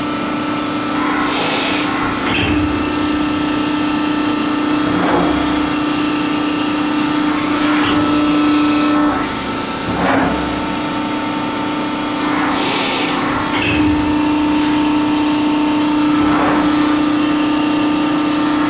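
Hydraulic CNC press brake running: a steady hum from its hydraulic pump, with a whirring burst every two to four seconds as the back gauge drives move, and a few light knocks.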